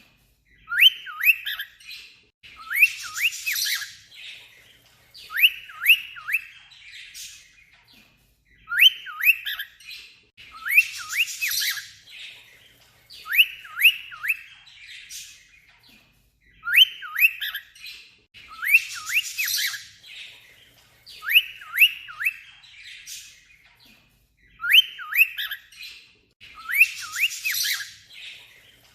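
Cockatiel whistling quick groups of short, falling chirps mixed with scratchy chatter, its imitation of an alarm sound. The same phrase comes four times, about eight seconds apart.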